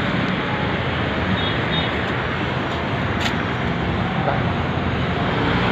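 Steady road traffic noise: a continuous rumble and hiss of passing vehicles, heard from a pedestrian footbridge.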